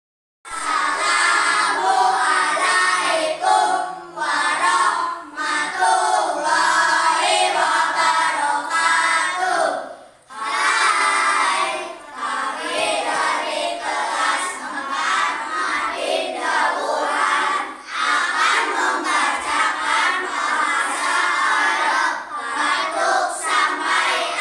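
A group of children singing together, an Arabic-language song, in sung phrases with short breaks, one nearly silent pause about ten seconds in.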